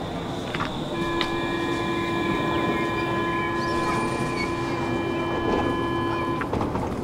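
Stockholm metro train (SL C30) at the platform, running with a low rumble. About a second in, a steady whine of several tones starts and holds, then cuts off sharply shortly before the end.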